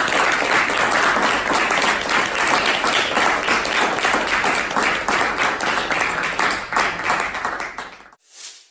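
A small audience applauding, many hands clapping. The applause cuts off about eight seconds in, followed by a short burst of noise.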